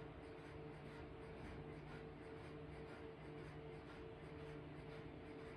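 Faint room tone: a steady low hum with light handling or rubbing noise.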